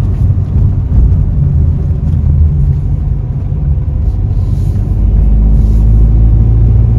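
Car's engine and road noise inside the cabin while driving: a steady low rumble that grows a little louder about five seconds in.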